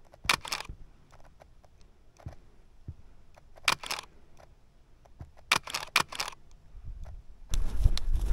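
Nikon D4s DSLR shutter firing in three short bursts of rapid clicks. Near the end a louder run of low thuds and rustling starts.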